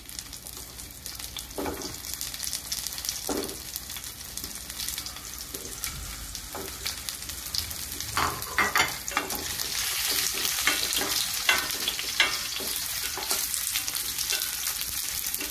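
Whole scored tinda (round gourds) sizzling in hot oil, ghee and cumin in a stainless steel pan as they are set in one by one, with scattered knocks as they land. The sizzle grows louder over the second half, and near the end a spatula stirs them.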